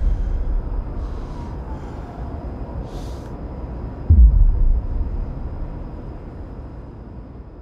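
Low cinematic rumble fading away, with a faint falling tone early on and a sudden deep boom about four seconds in that drops in pitch, then dies out slowly.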